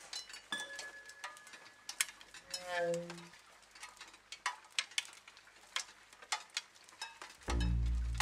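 Sparse, irregular crackling clicks and ticks, with a brief tone sliding downward in pitch about three seconds in. A loud low drone comes in near the end.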